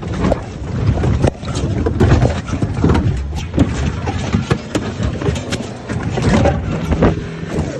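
An open safari vehicle being rammed and tipped over by a bull elephant. Many irregular knocks and bangs over a constant low rumble, mixed with close knocking from the tumbling camera.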